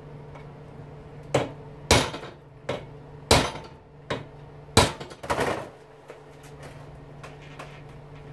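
About half a dozen hammer blows, unevenly spaced, knocking at stuck star-head screws on an electric lawnmower motor's cast-aluminium housing to jar them loose.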